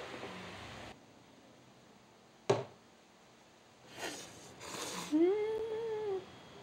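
A single sharp knock, then noodles slurped with chopsticks, followed by a long rising-and-falling "mmm" of pleasure at the taste of the ramen.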